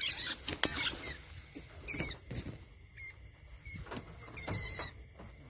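A field rat caught in a trap squealing in short, high-pitched bursts several times, loudest about four and a half seconds in, with scuffling and rustling between the squeals.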